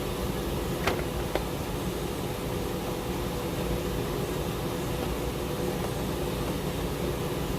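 A steady hum with a faint tone in it, and two sharp clicks about half a second apart, about a second in.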